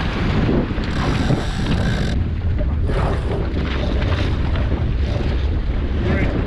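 Strong gusty wind buffeting the microphone on a Soling keelboat under sail, a steady heavy rumble, with water rushing along the hull.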